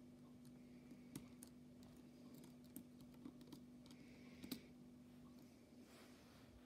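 Near silence with a few faint clicks of a precision screwdriver tip on a tiny screw in a smartwatch's metal case, over a steady low hum.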